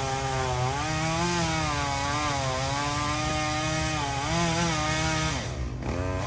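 Two-stroke chainsaw running at full throttle, cutting pecan wood, its pitch wavering as the chain bogs under load. Near the end it drops off the throttle briefly and then revs back up.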